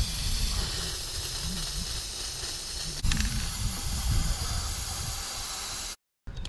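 Aerosol spray-paint can spraying paint onto the water in a bucket: a steady hiss in two long sprays with a short break about halfway, over a low rumble. It cuts off abruptly near the end.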